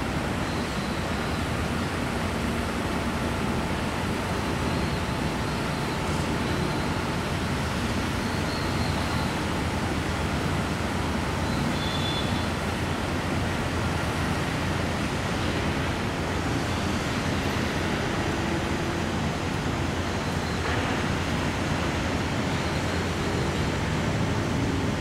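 Steady, unbroken rushing noise with a low rumble beneath it, holding the same level throughout.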